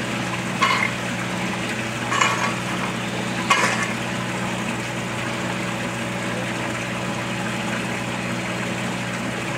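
A rake scraping and dragging loose cold-patch asphalt mix across pavement into a wet pothole, in three short strokes within the first four seconds, over a steady low hum.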